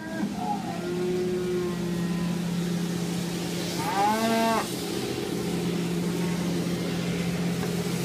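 Cattle mooing in a pen: a short, faint call near the start and one loud moo about four seconds in that rises and then falls in pitch. A steady low machine hum runs underneath.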